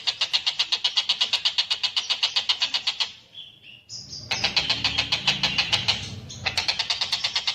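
Tengkek buto kingfisher calling in a fast, rattling chatter of even, high notes, about ten a second. Around three seconds in it breaks off for a moment with a few short higher notes, goes into a harsher, rougher stretch, then picks up the rapid chatter again near the end.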